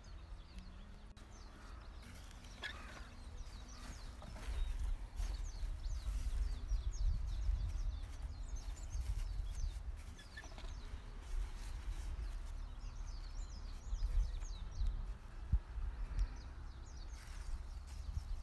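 Wind buffeting the microphone in a low, uneven rumble, with small birds chirping and singing throughout.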